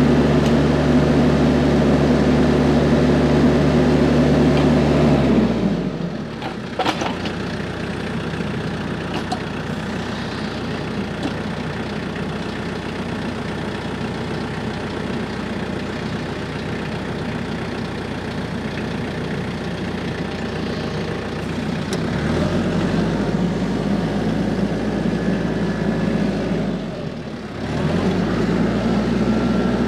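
TYM T474 compact tractor's diesel engine running at raised revs, dropping to a lower, quieter idle about five seconds in and revving back up about 22 seconds in, with a brief dip shortly before the end.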